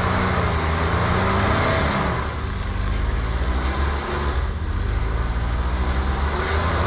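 Jeep engine revving up and down as it churns through deep mud.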